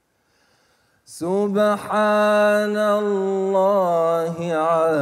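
Male Quran reciter chanting in tajweed style, holding a long melodic note on one pitch with wavering ornamental turns later on. The voice comes in after about a second of near silence.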